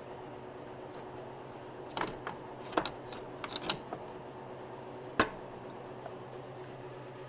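Several short metallic clicks and clinks from hand tools and parts being handled while unbolting under the hood: a cluster of them about two to four seconds in and a single sharp one a second later, over a steady low hum.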